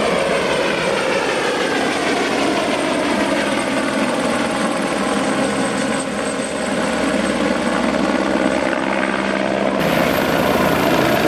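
Airbus H125 helicopter departing, its single turbine and rotor running steadily loud, the sound shifting in tone as the helicopter moves past. About ten seconds in the sound changes abruptly.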